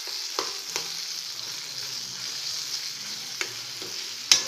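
Onion and tomato masala sizzling in a stainless steel kadai while a steel spoon stirs it, with a steady hiss. The spoon clinks against the pan a few times, loudest near the end.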